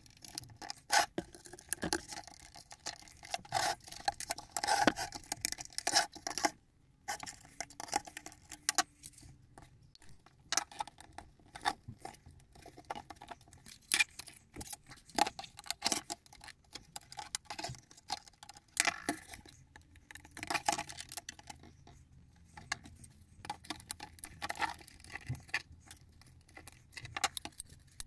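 Plastic tabs of a Ford Focus mk2 instrument cluster housing being prised apart with a small screwdriver to free the circuit board. Irregular clicks, snaps and light rattles of hard plastic.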